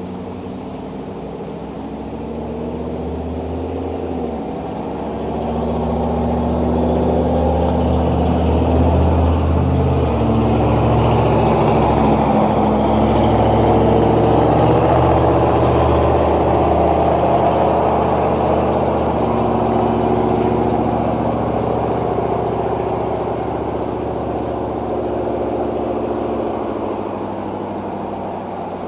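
A motor engine passing by, growing louder to a peak about halfway through and then fading, its pitch stepping and sliding a few times along the way.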